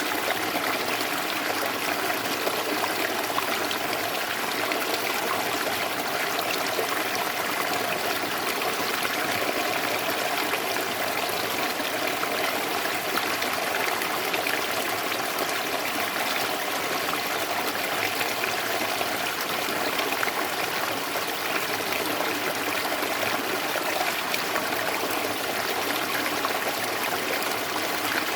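Running water trickling and babbling steadily, like a small stream, with no let-up.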